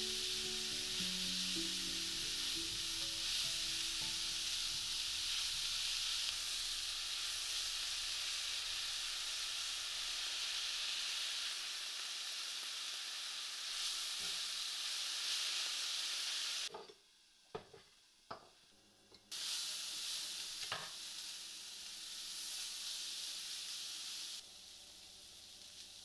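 Chopped greens and diced radish sizzling in a hot frying pan as they are stirred with a spatula. The sizzle cuts off for a couple of seconds past the middle, with a few light clicks, then comes back weaker.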